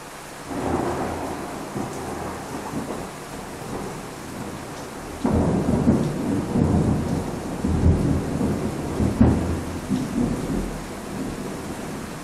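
Thunderstorm: steady rain hiss with thunder. A rumble starts about half a second in, then a louder clap breaks suddenly about five seconds in and rolls on with several peaks before easing off.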